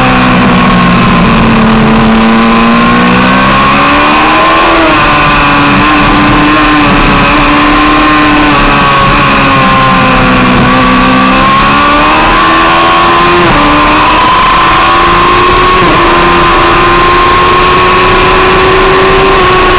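Yamaha R1 inline-four sport-bike engine at racing revs, recorded on the bike itself: the engine note drops at the start as the rider rolls off for a corner, climbs again, dips once more about halfway through and then rises steadily under hard acceleration near the end. The sound is very loud and constant in level.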